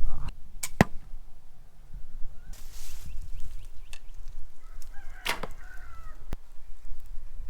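Sharp clacks of arrows or crossbow bolts being shot and striking foam 3D animal targets: one about a second in, and two more close together about five to six seconds in. The second is followed by a brief wavering call-like tone.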